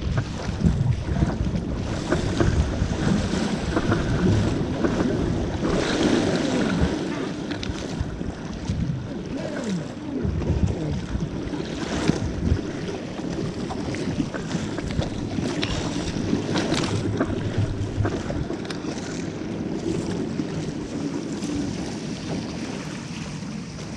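Wind buffeting the microphone over rushing, slapping sea water as a surfski is paddled hard through small waves, with a splash each time a paddle blade strikes and pulls through the water.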